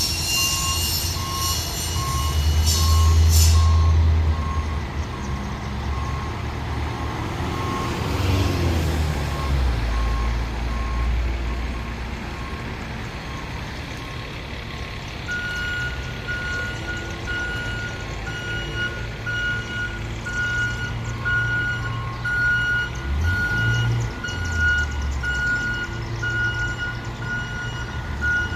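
Fire apparatus backing into the station, its diesel engine running under a reversing alarm that beeps steadily. About halfway through, a second, higher-pitched backup alarm takes over. A loud hiss of air sounds in the first few seconds.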